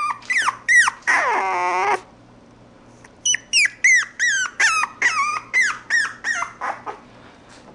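Small puppy yipping and whining in high, short cries that each slide down in pitch. There are a few cries at first, then a longer drawn-out whine of about a second. After a short pause comes a quick run of about a dozen yips, roughly three a second.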